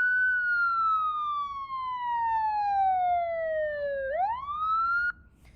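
Police siren sound effect playing as a wail: the pitch falls slowly for about four seconds, rises quickly, then cuts off abruptly about five seconds in.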